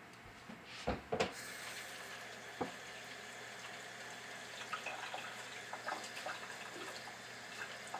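Kitchen sink faucet running as an onion is rinsed under it, with a few light knocks and clicks from handling at the sink, the loudest about a second in.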